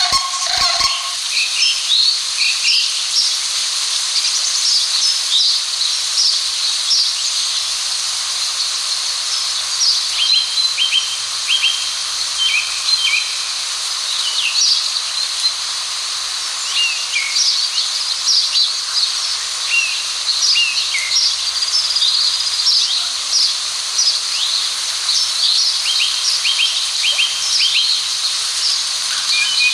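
Outdoor wildlife ambience: a honking call fades out about a second in, then small birds chirp and trill throughout over a steady high hiss.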